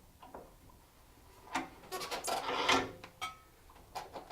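Metal rifle parts clinking and scraping as an AR-15 upper is handled in its vise block: a burst of clatter with a little ringing partway through, then a few single clicks.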